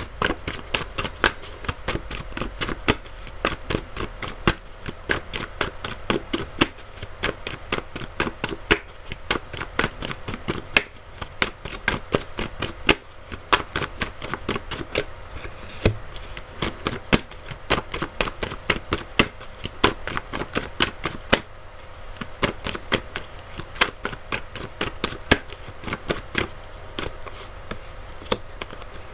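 A deck of oracle cards being shuffled by hand: a long, irregular run of sharp card clicks and taps, a few a second.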